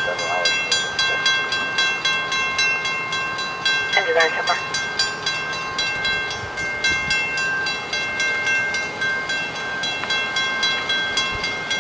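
Railroad crossing warning bell ringing in rapid, even strokes over a constant ringing tone, sounding because a train is standing on the crossing. A voice is heard briefly about four seconds in.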